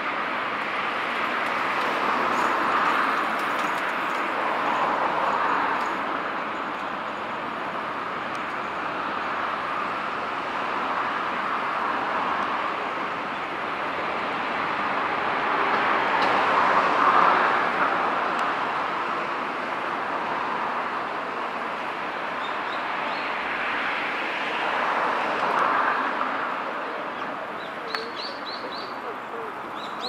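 Steady rushing noise of distant road traffic that swells and fades every few seconds, with a few short high bird chirps near the end.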